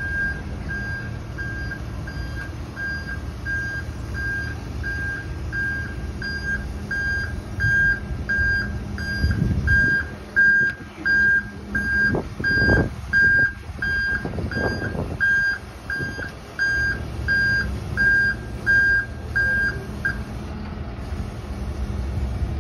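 Flatbed tow truck's backup alarm beeping at a steady pace, a bit more than one beep a second, over the truck's engine running. A few louder low rumbles come about halfway through, and the beeping stops near the end.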